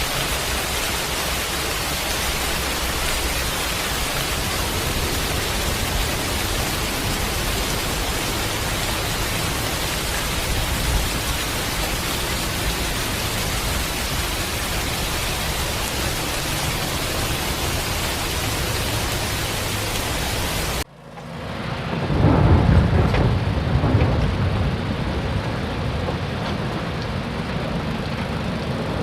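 Steady, loud hiss of heavy rain. About 21 s in it cuts abruptly to a deeper rumbling rush that swells for a couple of seconds and then settles.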